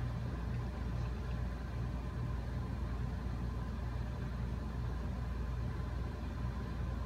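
Steady low mechanical hum of room equipment, with a faint high steady tone above it.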